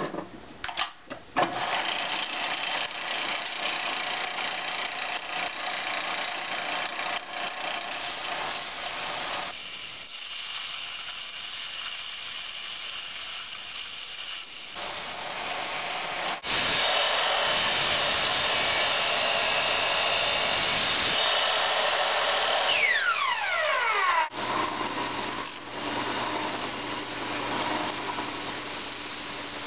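Electric bench belt sander running while a wooden knife handle is ground against the abrasive belt, a steady gritty rasp that changes at several cuts. About three quarters through, a whine falls in pitch. Near the end a second belt sander with a low steady hum takes over.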